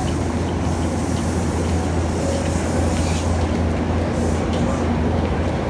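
Steady low rumble and hiss of a train standing at the platform.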